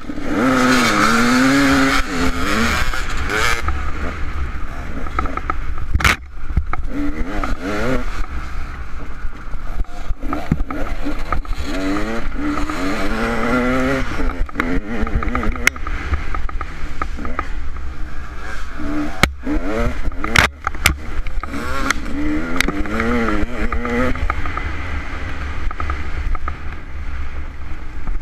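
Dirt bike engine, heard from the rider's helmet, starting suddenly and revving hard as the bike launches off the start line, its pitch climbing and dropping back again and again as it works through the gears. A few sharp knocks and clatter from the bike over rough ground.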